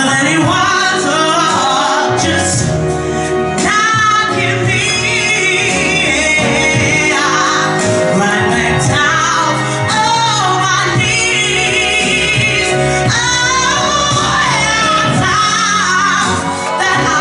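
A woman sings a soul ballad live over band accompaniment, her long held notes wavering with vibrato over sustained low chords.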